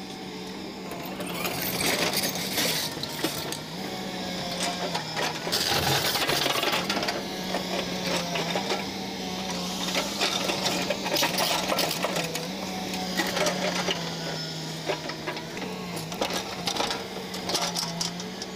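Caterpillar 320D2 excavator's diesel engine running with a steady hum that steps slightly up and down in pitch, over repeated metallic clanks and clicks of the steel track chain being refitted.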